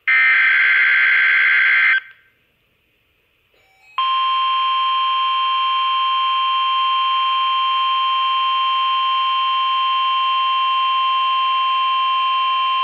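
Oregon Scientific WR602 weather radio's speaker sounding a NOAA Weather Radio alert: a two-second warbling digital data burst (the SAME header that triggers the alert), a short pause, then about four seconds in the steady, shrill warning alarm tone. The alarm tone runs for about nine seconds and marks the start of a tornado watch broadcast.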